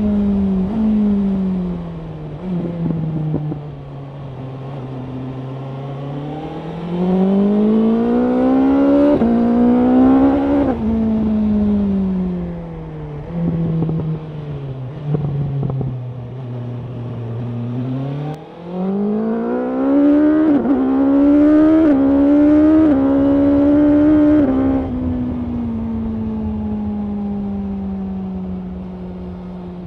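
2024 BMW S1000R's inline-four engine heard from the rider's seat. It falls off in revs, then pulls hard through the rev range twice, with quick upshifts shown as short dips in pitch during the second climb, and then eases back to a steady, slowly falling cruise near the end.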